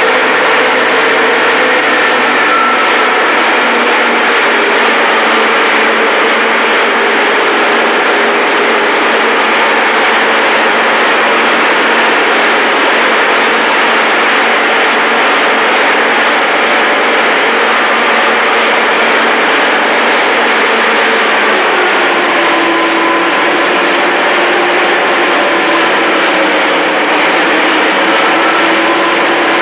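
Diesel vehicle engine running at full throttle in direct gear, loaded by a chassis dynamometer during a fuel-consumption test. A steady drone whose pitch drops somewhat about 22 seconds in.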